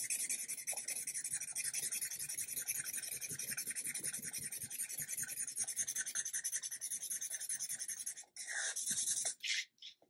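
Black Sharpie permanent marker scratching rapidly back and forth on paper as a section is coloured in solid, many quick strokes a second. The strokes stop a little after eight seconds in, followed by a few short scrapes.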